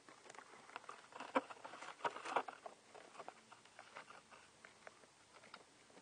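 Wind-driven blizzard snow ticking and pattering against a window: irregular light ticks, thickest from about one to two and a half seconds in.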